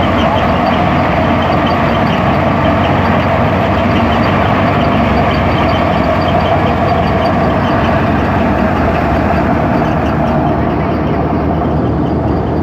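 Wheat threshing machine running steadily under power, a loud continuous mechanical drone as it threshes and pours out grain.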